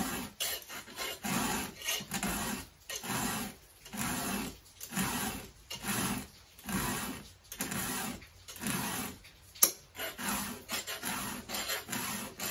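A coarse 3/16-inch round chainsaw file rasping across the cutters of a small low-profile saw chain, in repeated push strokes about one a second. The coarse file catches and pulls metal jaggedly.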